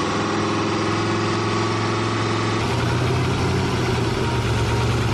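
Turbocharged GM LS1 5.7 L V8 idling, not sounding right though firing on all eight cylinders; a vacuum hose left disconnected is giving it a large vacuum leak. Its note gets deeper and a little louder about halfway through.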